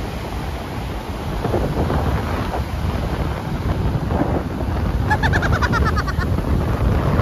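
Strong wind buffeting the microphone over surf breaking and washing up the beach, with a short high trilling sound about five seconds in.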